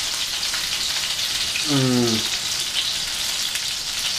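Chicken nuggets frying in oil in a pan: a steady sizzle with fine crackling.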